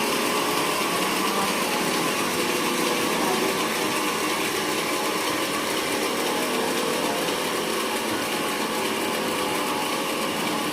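Sawmill machinery running steadily, a constant mechanical sound with several held tones that does not change.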